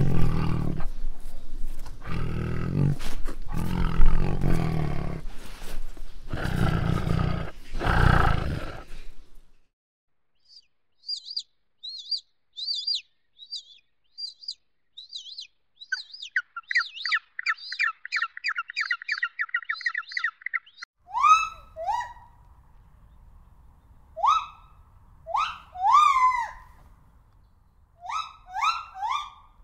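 A tiger growling in several long, rough bouts for about the first nine seconds. After a short gap come high, quick chirps and a fast, even trill. From about twenty seconds in, short squeaky calls slide down in pitch, in clusters of two to four.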